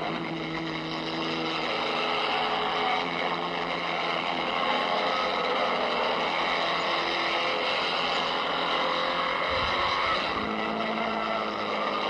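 Engine note of a 1920s Grand Prix racing car at speed, a steady drone that steps up a little in pitch about ten seconds in.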